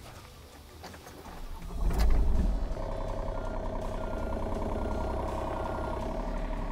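A John Deere 35G mini excavator's diesel engine cranks and fires about two seconds in, then settles into steady running. A short high beep repeats about once a second over it.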